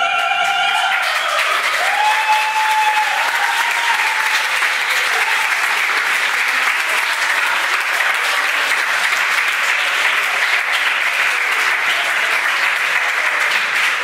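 A room full of students applauding steadily after an operatic solo. The singer's last held note ends about a second in, under the clapping.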